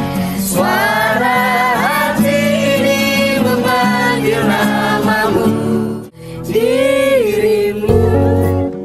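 A man singing to his own acoustic guitar with no microphone, his raw voice over the strummed chords. There is a brief break about six seconds in. Near the end it gives way to a different piece of guitar music with a steady bass.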